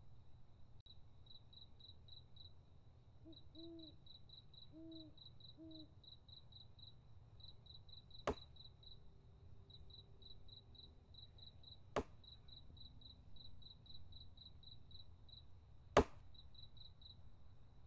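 Axe chopping into a log on a chopping block: three sharp chops about four seconds apart. Crickets chirp steadily in the background.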